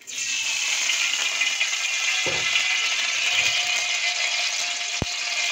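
Groundnut oil hissing steadily in a steel kadai on the stove as it heats for tempering. A low thud comes about two seconds in and a sharp click near the end.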